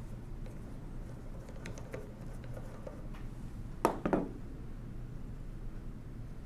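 Faint small clicks of a screwdriver backing a small steel screw out of a mechanical calculator's metal frame. About four seconds in comes a sharp clack and a smaller knock as the screwdriver is set down on the table.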